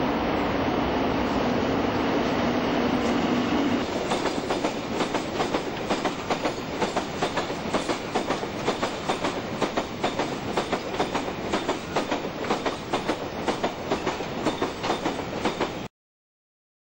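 Class 60 diesel locomotive running as it passes for the first few seconds, then its freight train's wagons rolling by with a rhythmic clickety-clack of wheels over the track, about three a second. The sound cuts off suddenly near the end.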